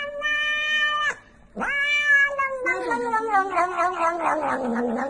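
A cat meowing in long, drawn-out calls. A steady held call stops about a second in, and after a short pause a longer call slides down in pitch and turns wavering near the end.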